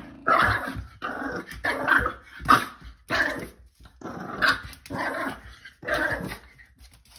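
Bulldog puppy giving a string of about eight short growling barks in quick succession.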